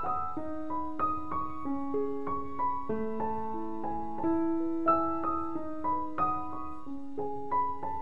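Background piano music: a gentle melody of single struck notes, about one or two a second, each left to ring over the next.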